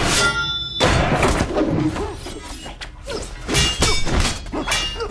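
Sword-fight sound effects: a sharp metallic clang that rings on briefly, then a heavy thud just under a second in, followed by a string of lighter hits and blows over background music.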